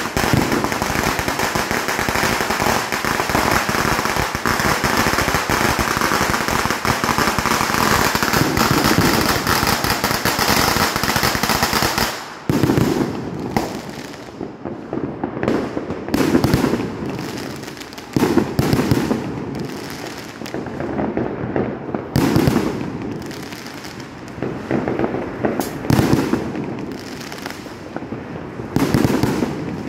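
Fireworks and firecrackers going off. For about twelve seconds there is a dense, continuous crackle of bangs that stops abruptly; after that come separate bangs every second or two, each trailing off in a short echo.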